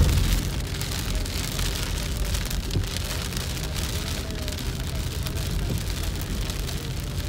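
Heavy rain falling on a car's windshield and roof, heard from inside the moving car over the low rumble of tyres on the wet road. It is loudest at the very start, then steady.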